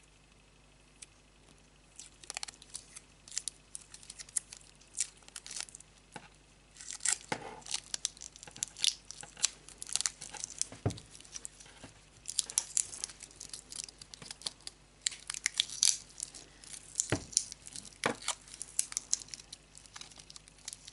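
Clear adhesive tape being pulled off its roll and wound around a bundle of thin wire stems: a run of crackling and tearing that starts about two seconds in and goes on in irregular spurts.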